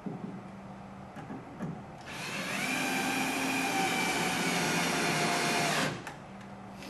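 Cordless drill driving a screw into a wooden log frame: after a few light knocks, the motor spins up with a rising whine about two seconds in, runs steadily for about four seconds and stops suddenly.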